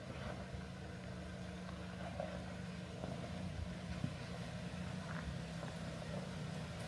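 Off-road vehicle's engine running steadily at low revs while crawling a rocky trail, with a few faint knocks.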